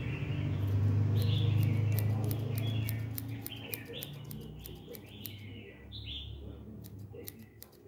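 Birds chirping over and over in short calls, with sharp clicks from scissors snipping lime leaves. A low hum is loudest in the first few seconds and then fades.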